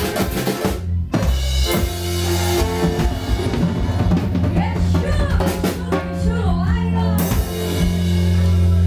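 Live Latin dance band with drum kit and timbales. The music cuts out sharply for a moment about a second in, then comes back as a long held low note and chord with drum hits and fills over it.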